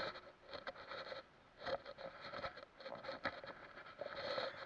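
Hooked bass splashing and thrashing as it is hauled out of the water on the line and swung over a paddleboard, with a sharp knock right at the start and scattered taps and knocks after.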